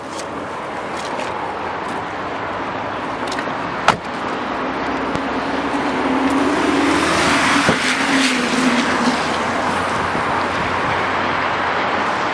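Road traffic noise with a vehicle going by, its sound swelling with a low hum over a few seconds just past the middle, and a sharp knock about four seconds in.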